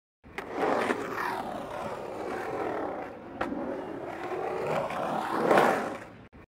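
Skateboard wheels rolling over skatepark ramps, swelling loudest near the start and again near the end, with two sharp clacks of the board, one about half a second in and one about three and a half seconds in. The sound cuts off suddenly just before the end.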